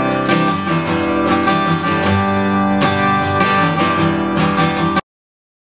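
Taylor acoustic guitar strummed in a steady chord rhythm. It cuts off suddenly about five seconds in.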